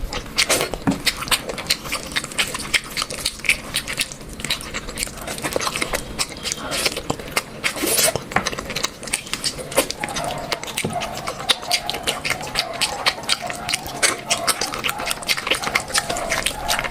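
Close-up eating sounds: a dense, uneven run of wet chewing and smacking clicks. From about ten seconds in, a faint wavering whine-like tone joins in.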